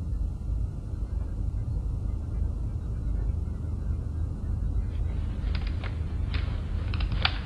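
A steady low rumble of room ambience, with a few faint clicks and rustles from about five seconds in.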